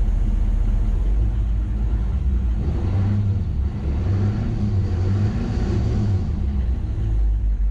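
6.6-litre Duramax turbo-diesel V8 idling steadily, heard at the exhaust tip.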